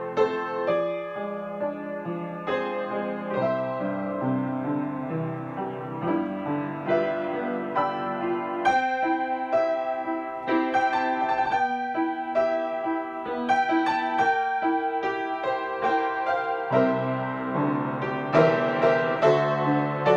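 Grand piano played solo: a melody over chords, its struck notes ringing on with a steady series of new notes and chords.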